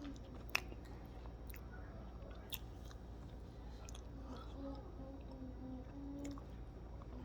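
A person chewing a mouthful of chicken roti, with small wet mouth clicks and a sharp click about half a second in.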